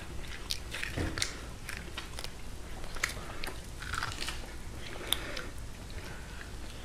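A person chewing and biting meat off caribou ribs close to the microphone, with irregular small clicks.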